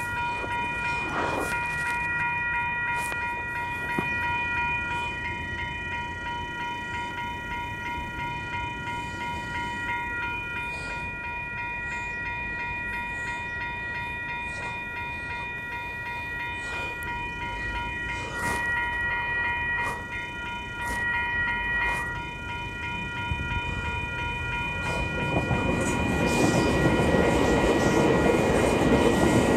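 Level crossing warning bell ringing rapidly and steadily while an Auckland AM class electric train approaches. A horn sounds twice about two-thirds of the way through. In the last few seconds the rumble of the train passing over the crossing rises and becomes the loudest sound.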